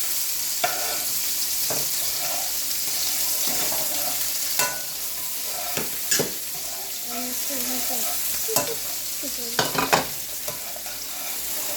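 Spices frying in a hot pan with a steady sizzle while being stirred, the utensil knocking against the pan now and then, several times in quick succession near the end.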